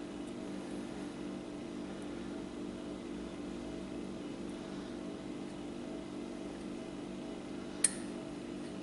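Steady low mechanical hum, several even tones, with a single sharp click near the end.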